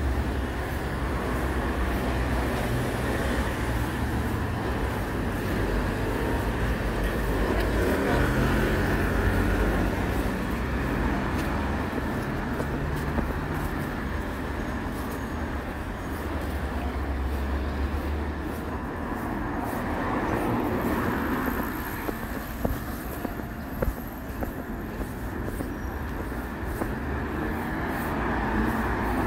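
City street traffic: passing vehicles making a steady rumble, with a few sharp clicks about three-quarters of the way through.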